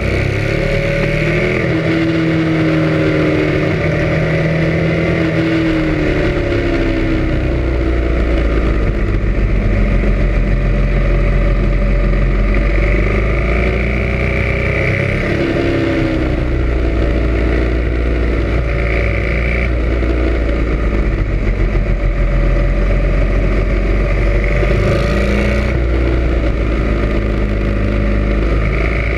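Sport motorcycle engine running while riding, heard close from the front fork, its pitch rising and falling as the bike speeds up and slows through the curves, over a steady low rumble and road noise.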